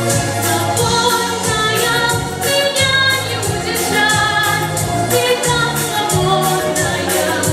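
A female voice singing a pop song over a backing track with a steady beat.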